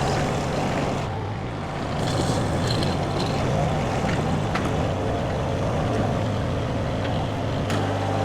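Diesel engine of a mini skid steer running steadily under load, with a few brief knocks and clanks.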